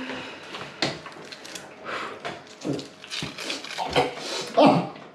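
A man with tetra spasticity biting and chewing a lahmacun, with irregular wet clicks and crackles from his mouth and the food. There are a couple of short vocal grunts, one near the middle and a louder one near the end.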